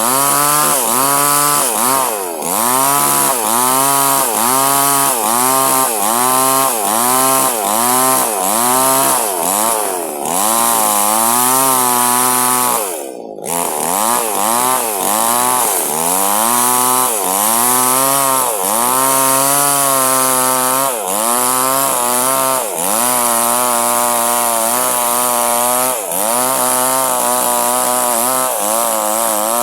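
Two-stroke chainsaw cutting durian wood under load, its engine pitch sagging and recovering in a steady rhythm just under twice a second as the bar works through the cut, with a brief drop in revs about halfway through.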